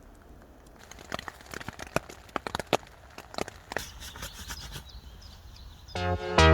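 Irregular sharp ticks and crackles, several a second, starting about a second in and thinning out after about five seconds; electronic music starts near the end.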